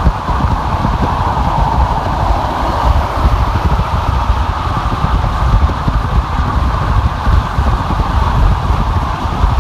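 Car driving at freeway speed: steady road and wind noise with a heavy low rumble.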